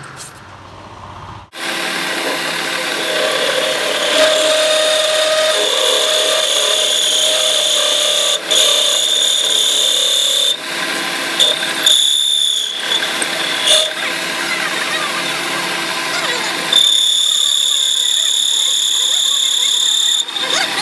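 Metal lathe cutting the end of a steel truck input shaft, the tool giving a steady high-pitched squeal over a harsh scraping noise. The cut breaks off briefly a few times and is louder for the last few seconds.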